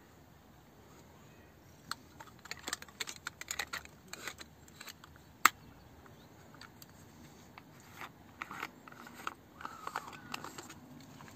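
Metal clicks and scraping from a Salyut medium-format camera and its Industar-29 lens being handled and turned, in two spells of small clicks with one sharp click about five and a half seconds in.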